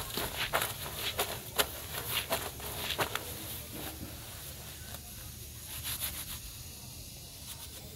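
Clothes being hand-washed in soapy water in a metal basin: irregular squelching and sloshing as the wet cloth is kneaded and rubbed, busy for the first few seconds, then quieter and sparser as the clothes are lifted and turned.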